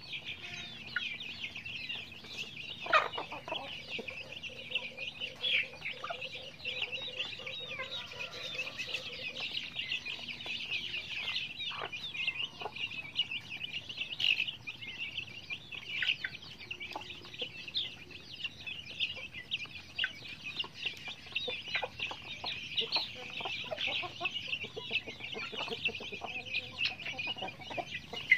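Many chicks peeping nonstop in quick, high cheeps, with hens clucking now and then; one louder cluck comes about three seconds in.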